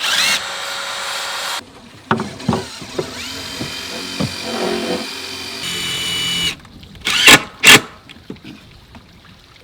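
Power drill driving screws into wooden deck boards in two runs. The second run has a motor whine that rises and then holds steady. Two loud sharp knocks follow near the end.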